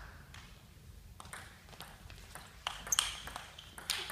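Table tennis ball clicking back and forth off the rackets and the table during a rally, a sharp tap roughly every half second.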